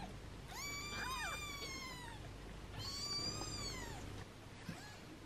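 Newborn British Shorthair kittens mewing: two long, high-pitched cries of about a second and a half each. A second kitten's shorter cry briefly overlaps the first.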